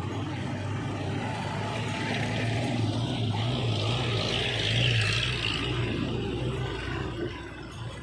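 A motor vehicle's engine running with a steady low hum, with a hiss that swells about halfway through and fades near the end.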